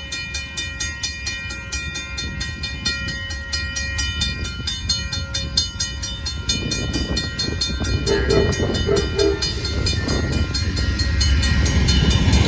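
Amtrak Texas Eagle passenger train approaching a grade crossing, its rumble growing louder from about halfway in, with a few short horn sounds about two-thirds of the way through. A crossing bell rings steadily throughout, about four or five strikes a second.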